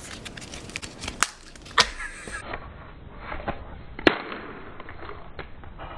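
A few sharp knocks and handling clicks, then one loud crack about four seconds in: an egg being smashed on a person's head.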